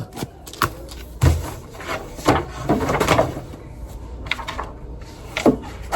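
A series of irregular knocks and short rustling handling noises, like things being picked up, moved and set down.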